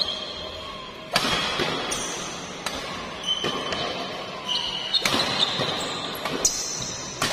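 Badminton rally: a shuttlecock struck back and forth by rackets, a sharp hit about once a second with echo in the hall, one near the end a jumping smash. Shoes squeak briefly on the court floor between hits.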